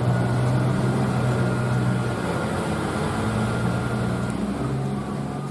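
Truck engine sound running steadily, with a thin high whine above it, easing off near the end.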